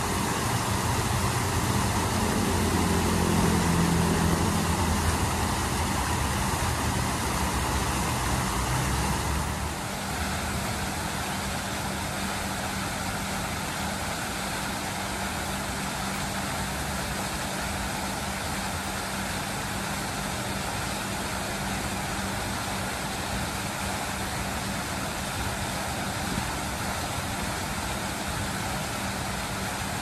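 Steady rush of fountain water jets spraying and splashing into a pool, mixed with road traffic. A heavier engine rumble fills the first nine or so seconds, then drops away abruptly.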